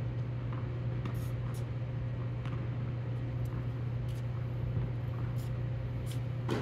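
Steady low hum of an indoor hall's ventilation, with a faint steady tone above it. Faint sharp knocks of tennis balls come at irregular intervals, several of them close together a little over a second in.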